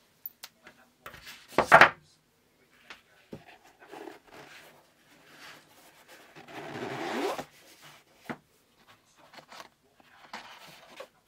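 Cardboard watch presentation box handled with gloved hands: a sharp knock about two seconds in, scattered light taps and rustles, and a rubbing slide lasting about a second midway as a part of the box is slid open.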